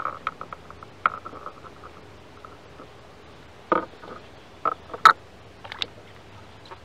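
Fishing tackle being handled in a kayak: a run of light clicks in the first second or so, then a few sharper knocks and taps about four to six seconds in, the loudest just after five seconds.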